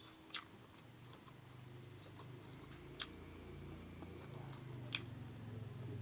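A person chewing a mouthful of food, faint, with three sharp clicks spaced through it and a low hum underneath that slowly grows louder.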